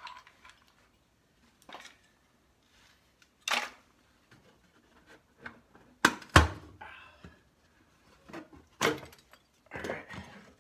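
Irregular sharp knocks, clatters and scrapes of a hand working thin wooden pieces loose inside a cut-open steel safe, with the loudest pair of knocks about six seconds in.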